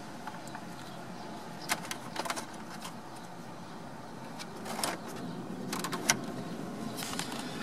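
VW T5 Transporter's heater blower fan running, a steady rush of air from the dash vents, with a few short clicks from the heater control dials being turned.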